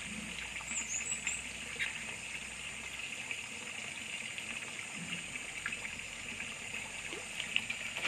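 Steady trickle of running water, with a brief high chirp about a second in.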